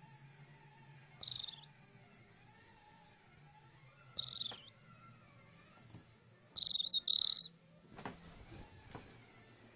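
A sleeping woman snoring with a high-pitched, bird-like squeak, three times about three seconds apart, the last squeak longer and broken in two. A few soft clicks follow near the end.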